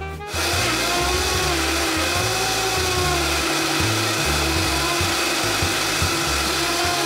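An electric motor appliance running loudly, starting about a third of a second in, its pitch wavering, over background music.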